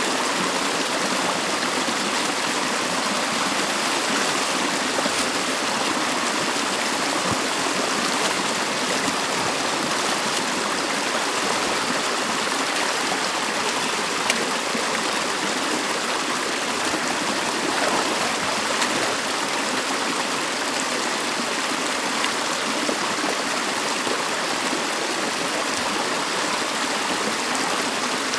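Water of a small stream flowing steadily through a beaver dam, with one faint knock about fourteen seconds in.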